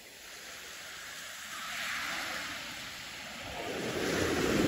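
Small waves breaking and washing up a sandy beach, in two swells, the second louder and building near the end.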